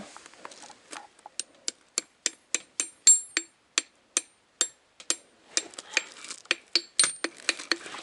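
Hammer tapping the back of a small hatchet whose blade is set in a stick of firewood, splitting kindling: a run of short metal-on-metal clinks, about three a second, some with a brief high ring.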